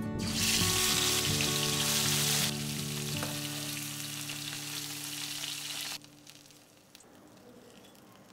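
Whole koi fish laid into hot oil in a wok, sizzling loudly as they go in. The sizzle eases after about two and a half seconds and cuts off about six seconds in. Soft background music with held notes runs underneath.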